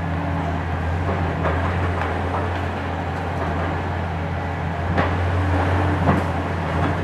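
Diesel engine of a Hitachi ZX 870-3 high-reach demolition excavator running steadily, with a few sharp knocks, the loudest about five and six seconds in.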